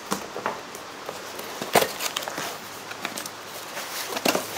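Cardboard packing rustling and scraping as hands rummage in a shipping box, with scattered light knocks and clicks from packed cups and saucers being moved. The sharpest knock comes just under two seconds in.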